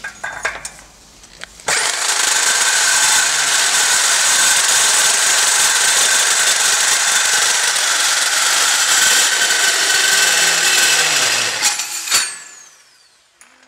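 A power tool's motor running at high speed with a loud, hissing whine. It starts abruptly a couple of seconds in and winds down with a falling whine near the end.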